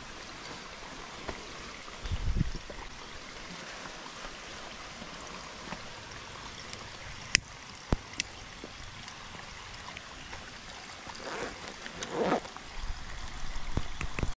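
Small forest stream trickling steadily where it runs through a split bamboo spout. A low bump comes about two seconds in, and a few sharp clicks about halfway through.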